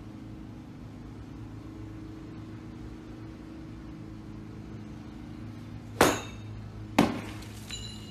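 A golf club swung at something on a concrete garage floor: a sharp crack of the strike, then about a second later a second loud impact as the struck object hits something hard, followed by a short ringing clink. A steady low hum runs underneath.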